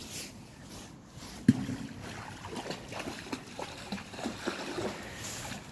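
A cane corso wading through shallow water, with small irregular splashes and sloshes from its legs. About a second and a half in, a single sharp splash as something drops into the water.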